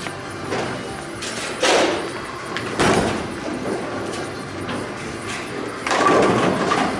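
Bowling alley clatter: balls thudding onto and rolling down the lanes and pins crashing. There are sharp knocks about 1.5 s and 3 s in, and a longer crash about 6 s in.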